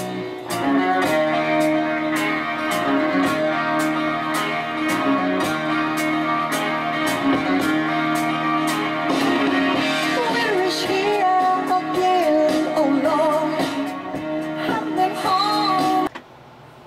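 A 33 rpm record playing through the built-in speaker of an Audiotronics 326 classroom record player: guitar-based pop music, with a voice singing from about ten seconds in. The music cuts off suddenly near the end.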